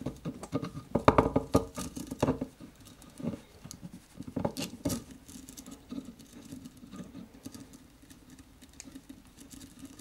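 Stainless-steel ball chain rattling and clicking in the hands while its stiff new connector clasp is pressed shut. The clicks come thick for the first few seconds, then thin out and grow quieter.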